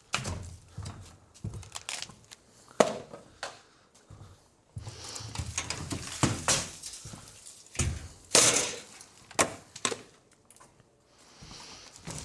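Clutter being handled and moved about: irregular knocks, thumps and scraping as objects are picked up, set down and shifted, with the sharpest knocks a few seconds in and again around eight to nine and a half seconds.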